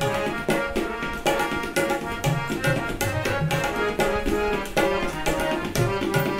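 Tabla played in a brisk, steady rhythm, with deep strokes on the bass drum, over a harmonium sounding sustained reedy notes.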